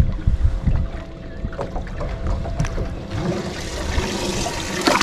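Wind rumbling on the microphone and handling noise as a caught bream is lowered into a boat's live well, with water sloshing that builds over the last couple of seconds and a sharp knock near the end.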